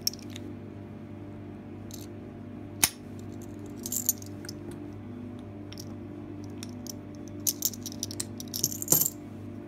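Mindy A16-60 padlock worked with its key: a sharp metallic click about three seconds in, then a run of clicks and key jingling near the end as the lock is snapped shut. A steady low hum runs underneath.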